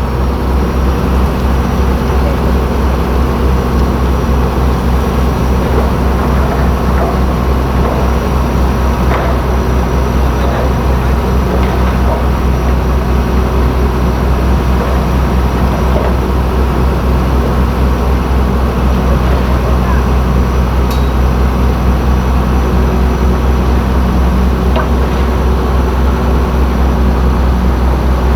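Heavy diesel earthmoving machinery running steadily under load, a deep even engine drone with a thin high whine above it.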